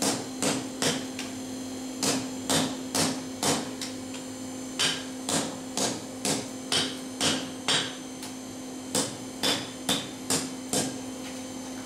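Hand hammer striking a red-hot steel bar laid in a swage block groove, about two blows a second in short runs with brief pauses, as the bar is forged into the curve of a shoe horn. A steady hum runs underneath.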